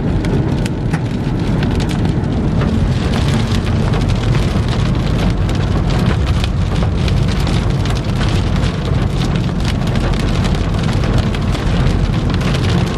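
Heavy rain hitting a car, a dense, fast patter of drops over a steady low rumble of wind and the moving car.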